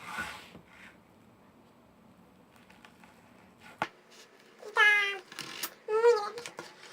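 A domestic cat meowing twice near the end, short calls falling in pitch, after a single sharp click.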